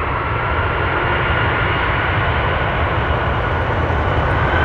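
Jet engines of a Boeing 787-8 Dreamliner (Rolls-Royce Trent 1000s) running at takeoff power on the takeoff roll. A steady jet noise carries a whine that slowly rises in pitch, growing steadily louder.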